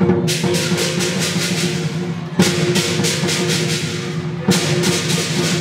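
Dragon dance percussion: rapid beats on a large drum with clashing cymbals, three loud crashes about two seconds apart over a steady ringing.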